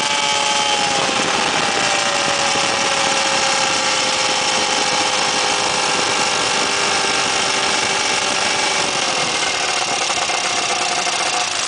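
Weedhopper ultralight's two-stroke engine running at low throttle while the aircraft taxis on grass, a steady buzz whose pitch drops slightly about a second in and again near the end.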